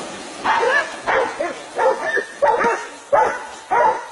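Hunting dogs barking in a quick series as they bay a wild boar, about one bark every two-thirds of a second, starting about half a second in.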